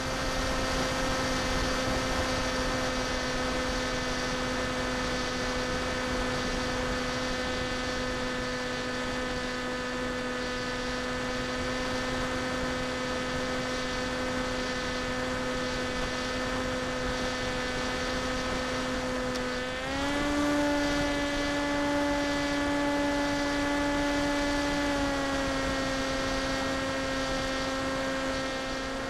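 Electric motor and propeller of a Versa blunt-nose FPV flying wing heard from on board: a steady droning hum with a stack of overtones. About twenty seconds in the pitch steps up with more throttle, then settles back down about five seconds later.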